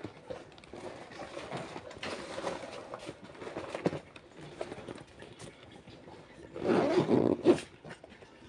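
Scattered soft clicks of fingers pressing the keys of a desktop calculator, with a louder rough noise lasting about a second around seven seconds in.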